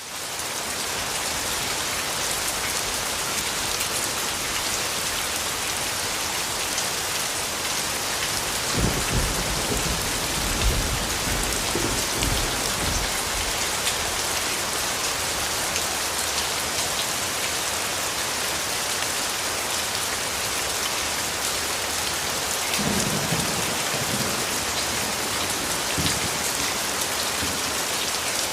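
Steady heavy rain falling, fading in from silence at the start. Low rolls of thunder come about a third of the way in and again near the end.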